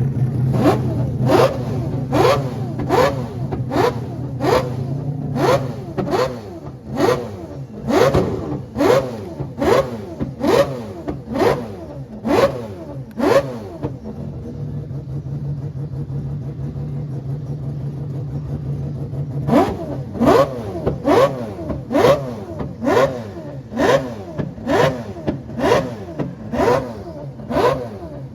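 A rotary car engine blipped over and over, about once or twice a second, each rev spiking and then falling away. The revving stops for several seconds midway, leaving a steady idle, then starts again.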